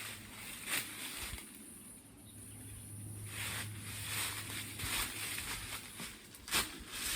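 Rustling of leaves and branches with scattered light knocks and crackles, getting busier about three seconds in, over a low steady hum.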